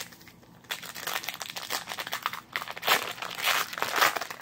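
Plastic wrapper of a baseball trading-card pack crinkling and tearing as it is ripped open and crumpled by hand. The crackle starts under a second in and gets louder toward the end.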